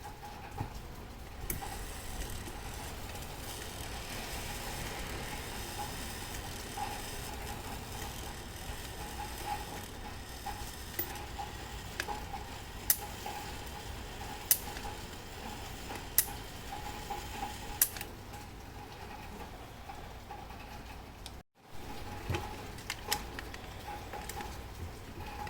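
Sharp mechanical clicks from a grandfather clock's Mauthe movement, a few falling roughly every second and a half midway through, over a steady low background. The sound drops out for an instant about three-quarters of the way through.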